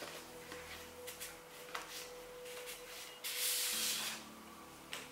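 Paper rustling as a letter is slid out of a stiff paper envelope, with a few short rustles and one longer, louder sliding rustle about three seconds in. Soft background music with held chords runs underneath.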